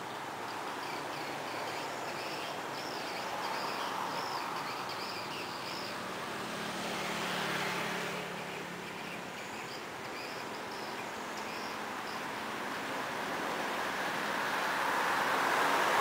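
Swiftlet lure call: a run of quick, wavering high chirps for the first six seconds and again briefly about ten seconds in, over a steady rushing noise that swells around eight seconds and again near the end.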